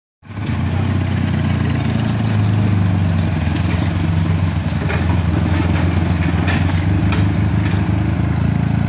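Crawler excavator's diesel engine running at a steady pitch.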